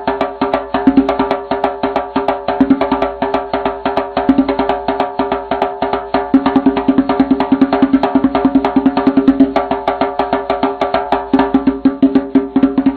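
Background music: a fast clicking percussion beat over steady held tones.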